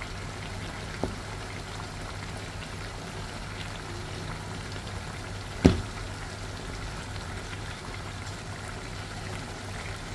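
Igado cooking in a pan: a steady low bubbling hiss of the simmering stew, with a faint tap about a second in and a sharp knock against the pan a little past halfway.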